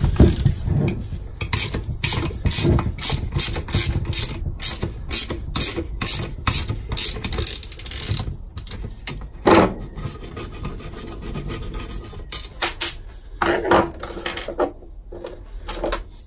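Socket ratchet on a long extension clicking in quick runs as a 10 mm bolt on a turbocharger's actuator bracket is backed out, with a few louder knocks of metal tools.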